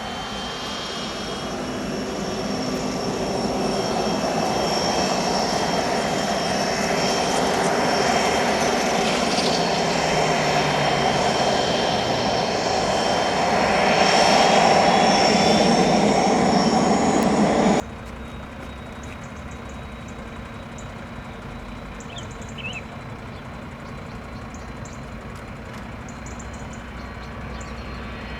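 Cessna Citation Sovereign business jet's twin turbofans at high power on the takeoff, a loud rush with a high-pitched whine that grows steadily louder over about fifteen seconds. It cuts off abruptly about 18 seconds in, leaving a much fainter steady hum, and the jet noise starts rising again near the end.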